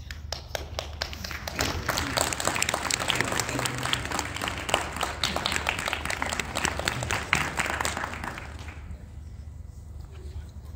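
Audience applauding, a dense patter of many hands clapping that dies away about nine seconds in.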